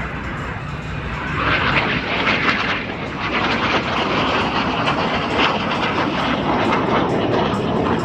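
A-37 Dragonfly's twin turbojet engines as the jet flies over, a loud rushing noise that swells about a second and a half in and holds.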